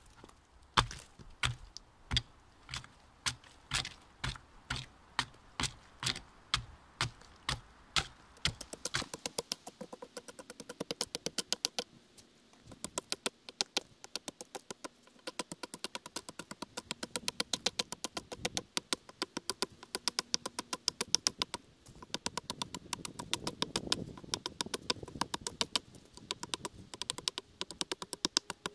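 Axe hewing the side of a rotten pine log. At first there are heavy, evenly spaced blows, about one and a half a second. From about nine seconds in they give way to a quick run of lighter, sharper strikes, several a second, with a couple of short pauses.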